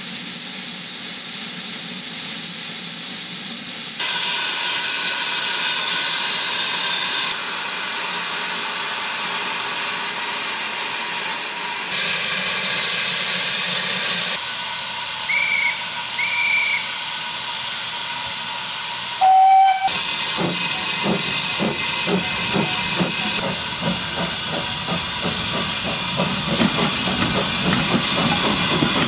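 Saddle-tank steam locomotive standing with a steady hiss of steam, then two short high-pitched whistle toots and, a few seconds later, a single louder, lower whistle blast. Right after it the locomotive starts away with a quickening beat of exhaust chuffs.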